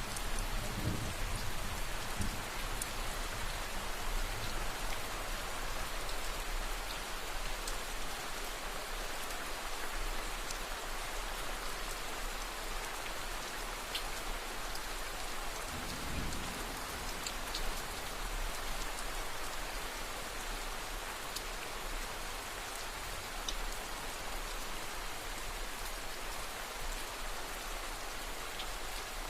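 Steady rain falling, an even hiss with scattered sharp drop ticks. A faint low rumble comes near the start and again about halfway through.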